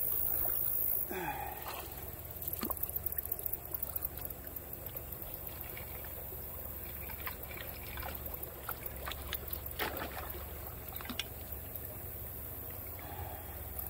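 Water splashing and trickling as a long-handled potato rake is dragged through shallow water at a clogged culvert, with scattered short sharp splashes and knocks from the tines.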